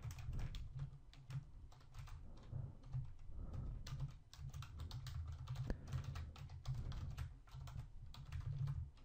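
Typing on a computer keyboard: a run of quick, uneven key clicks.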